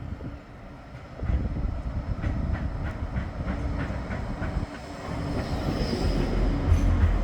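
Bombardier Flexity 2 tram running on street track: rumble with a run of wheel clicks starting about a second in, then a heavier low rumble building from about five seconds, with a brief high whine near six seconds.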